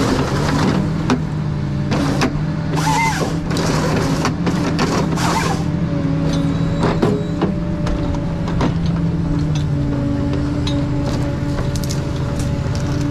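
Ponsse Scorpion King forest harvester's diesel engine running steadily under load, with a string of sharp cracks and several short loud rushing bursts in the first half as the harvester head works a tree, and a brief squeal about three seconds in. The engine's pitch drops slightly near the end.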